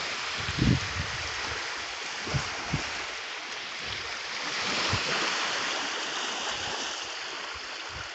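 Steady rush of moving water, swelling a little midway, with a few short low thumps.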